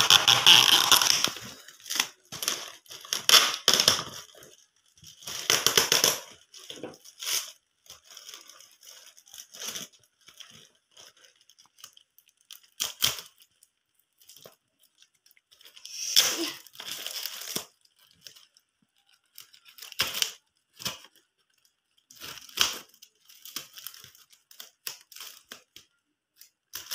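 Packing tape being ripped off a plastic-wrapped parcel in a series of loud tearing bursts, the loudest near the start and again after about 16 seconds. Between them the plastic wrap crinkles and the box cutter's blade makes small scraping clicks as it cuts the parcel open.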